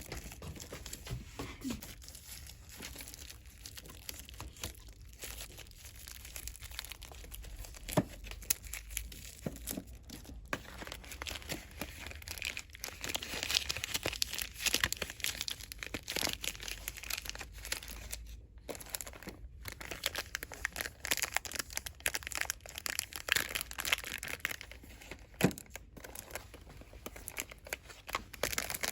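Fast, dense crinkling and rustling of cosmetics packaging handled by hand, with a few sharp clicks.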